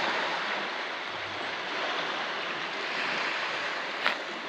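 Steady wash of small waves on a stony beach, with one short click about four seconds in.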